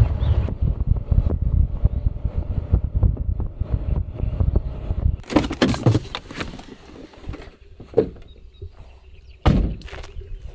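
Car rolling slowly over a bumpy dirt track, a low rumble with rattles for about five seconds. Then the car door is opened with clunks, and a heavy thunk comes a little after nine seconds as the door shuts.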